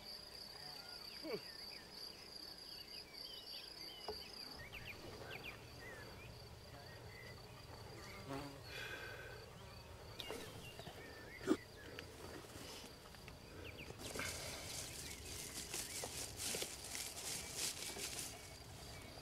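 An insect trilling steadily at a high pitch, with scattered faint bird chirps. In the last few seconds, wheat stalks and grass rustle as they are handled.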